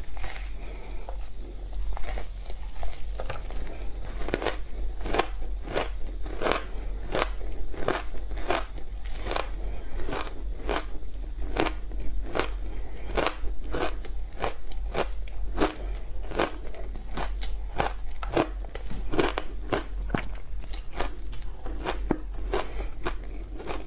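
A frozen block of matcha tea and sweet potato powder ice being bitten and chewed: sharp, crisp crunches, two or three a second in an irregular run, over a low steady hum.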